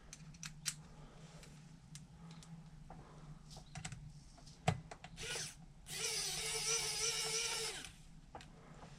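Small plastic and metal parts clicking and tapping as they are handled. About six seconds in, a small electric screwdriver whirs for about two seconds, driving a small screw.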